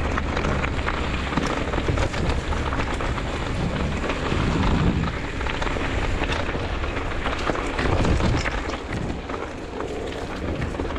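Continuous crunching, crackling and rattling of moving quickly along a rough woodland trail, with louder bumps about halfway through and again near the end.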